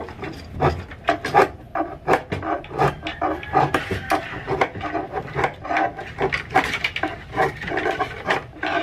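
Hand file rasping along the edge of a laminated board, trimming the excess glued-on edge banding flush, in quick repeated strokes of about two or three a second.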